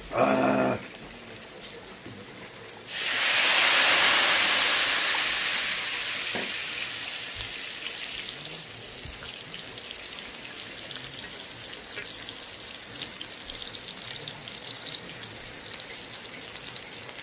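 Grill pan of pork intestines (makchang), pork belly and vegetables sizzling. A sudden loud burst of hissing comes about three seconds in, with a cloud of steam off the pan, and fades over several seconds to a steady, crackling sizzle. A short pitched sound is heard at the very start.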